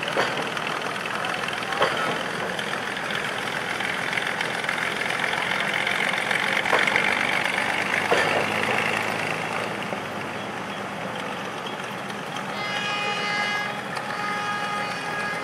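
Rio Grande Southern Galloping Goose rail motor car's engine running while the car is turned on the turntable, with a few sharp knocks along the way. Near the end a steady pitched tone sounds for about two and a half seconds.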